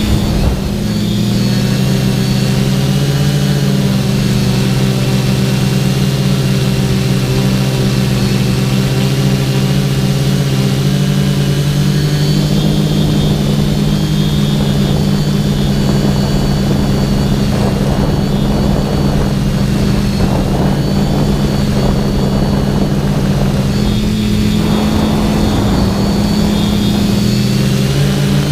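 TBS Discovery quadcopter's electric motors and propellers whining steadily, recorded by its onboard GoPro. The pitch shifts with throttle changes near the start and again about three quarters through. A rushing air noise runs through the middle stretch.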